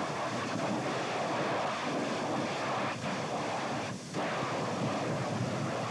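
Lava blasted upward by steam explosions where seawater has got into a lava tube: a steady, rough rushing noise with no separate bangs. It dips briefly about three and four seconds in.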